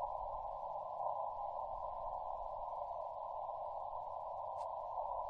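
Receiver hiss from a Yaesu FT-891 HF transceiver, squeezed into a narrow band by its CW filter. It hisses steadily with no Morse signal coming through. A faint click comes about four and a half seconds in.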